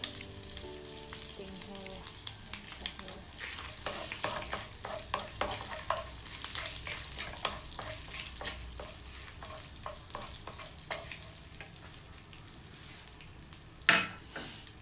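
Butter and whole spices sizzling and crackling in hot oil in a nonstick wok as a wooden spatula stirs them. A single sharp knock near the end, the wooden spatula set down against the pan.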